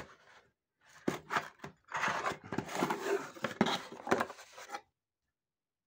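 Cardboard parcel box being opened by hand: cardboard flaps scraping and rustling, with a few sharp clicks. It stops abruptly about five seconds in.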